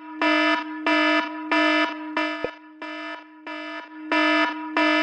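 iPhone 'Alarm' ringtone playing: fast repeating electronic beeps over a steady low tone, growing louder and softer in waves.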